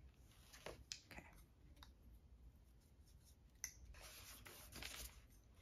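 Near silence, with a few faint clicks from a plastic folding watercolour palette being handled and a soft rub for about a second, around four seconds in.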